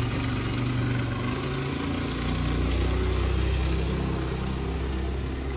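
Small motor scooter engine running steadily as the scooter rides off, its low note dropping lower about two seconds in.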